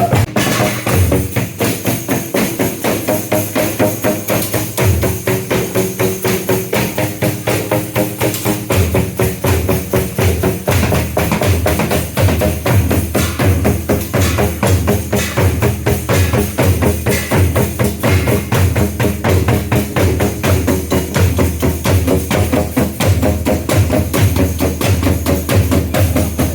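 Live group rehearsal music: drums and other percussion playing a fast, steady beat, with pitched instruments or voices sustained underneath.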